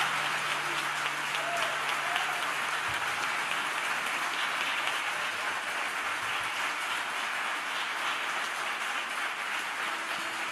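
Audience applauding at the end of a song: a steady, dense clapping that eases off slightly near the end.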